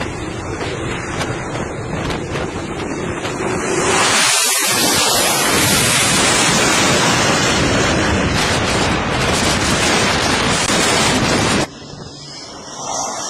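Loud jet engine noise from an F/A-18 Hornet leaving an aircraft carrier's deck. It grows louder about four seconds in, holds steady, and cuts off abruptly near the end.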